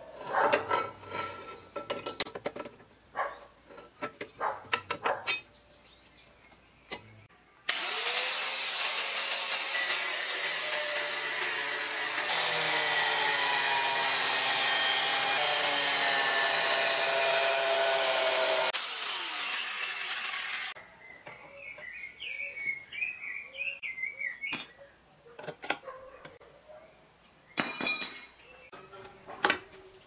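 An angle grinder cutting steel plate, running loud and steady for about thirteen seconds from around eight seconds in. It follows short irregular bursts of a drill press boring holes in the same steel blank, and near the end come a few sharp metallic clicks.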